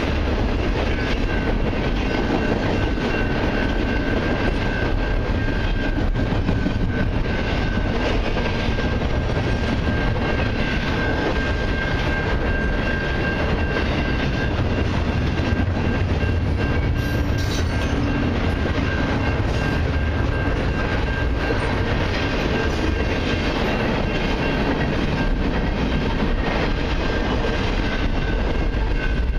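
Double-stack intermodal container cars of a long freight train rolling steadily past, steel wheels clattering over the rail joints, with a steady high tone running over it.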